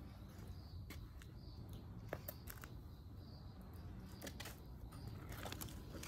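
Large dog on a leash moving about on wet asphalt: scattered light clicks and taps from its claws and collar hardware over a low outdoor rumble.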